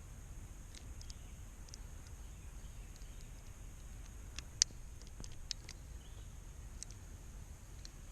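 Insects droning steadily in a high, even band, with scattered small clicks and taps of handling, the sharpest about four and a half seconds in.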